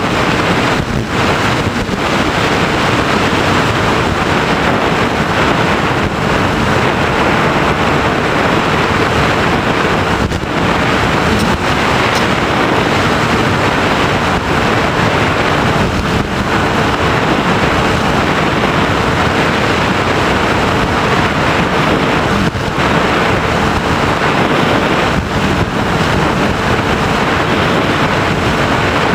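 Loud, steady wind rush on the onboard camera's microphone of an FPV Raptor model plane in flight, with the steady hum of its propeller motor underneath.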